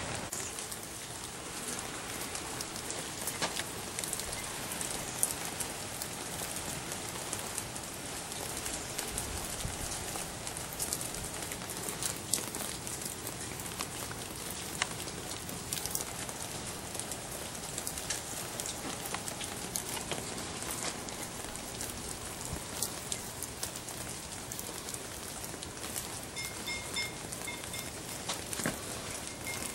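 Steady rain pattering and dripping on an ice-glazed yard and trees, with many small sharp drip ticks. A faint run of high beeps sounds near the end.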